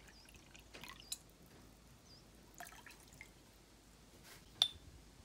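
Faint trickle and drips of water being poured into a small glass measuring jigger and emptied into a glass measuring cup. A single sharp glass clink about four and a half seconds in.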